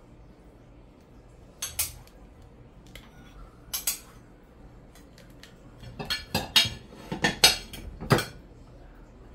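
A metal serving spoon clinking and knocking against a steel pot and plates as rice is served: a pair of clicks about two seconds in and another pair near four seconds, then a quick run of louder knocks from about six to eight seconds.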